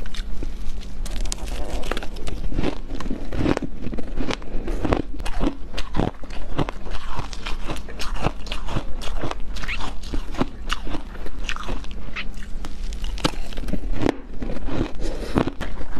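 A person biting and chewing mouthfuls of hard shaved ice, many sharp crunches a second in a dense, unbroken run.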